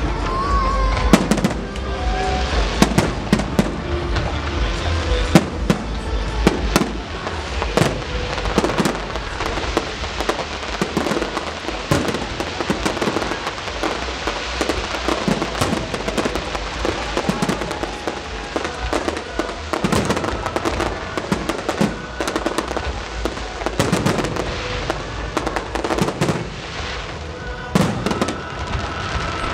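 Fireworks display: aerial shells bursting one after another, many sharp bangs at irregular intervals with no pause.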